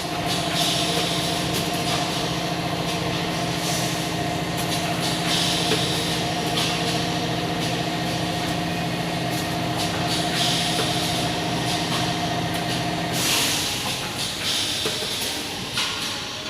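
Paper cup making machines and an automatic cup packing machine running: a steady mechanical hum with a fast rhythmic clatter, broken by repeated short bursts of hiss. The hum stops about 13 seconds in.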